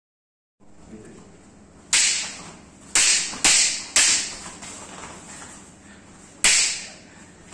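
Wooden practice swords clashing in sparring: five sharp clacks, three of them in quick succession, each with a short ring in the hall.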